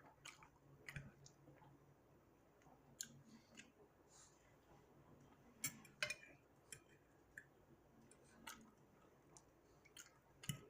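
A person eating lasagna and garlic bread close to the microphone: scattered soft chewing and mouth clicks, about a dozen, in a quiet room.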